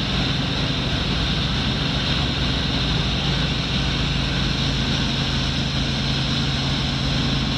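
Cockpit noise of a Robinson R44 helicopter in cruise flight: its six-cylinder Lycoming piston engine and rotors make a steady drone with a low, even hum and an airy rush over the top.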